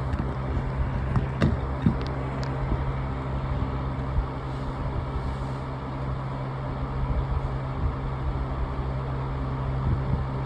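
Vornado box fan running steadily on speed 2, a rush of air over a low hum, with a few light clicks in the first two seconds.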